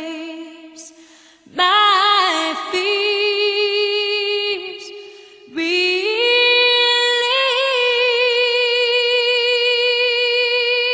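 A woman singing a slow song with vibrato: a phrase trails off at the start, another follows about a second and a half in, and from about six seconds in she holds one long note to the end.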